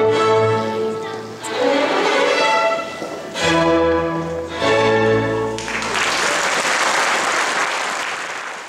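Chamber orchestra of strings and horn playing sustained classical chords. The music stops about six seconds in, audience applause follows, and it fades out at the end.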